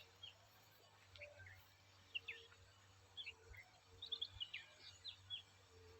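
Faint bird chirps: many short, high notes scattered throughout and most frequent about four to five seconds in, over a faint steady low hum.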